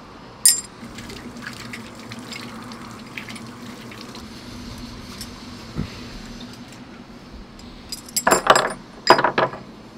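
Water running from an outdoor standpipe tap: a steady rush with a low hum, after a click about half a second in. Near the end, a quick run of loud clinks and knocks.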